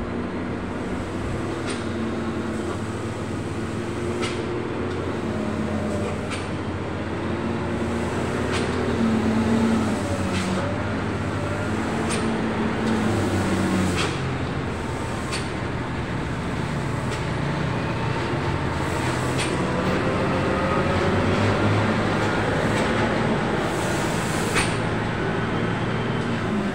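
Heavy diesel trucks, among them concrete mixers and tankers, running through a steep hairpin bend amid passing cars; several overlapping engine notes rise and fall over a steady traffic noise.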